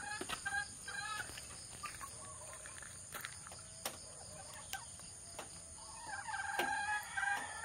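Chickens clucking and calling: short calls at the start, then a longer, louder call from about six seconds in. A few sharp clicks in between.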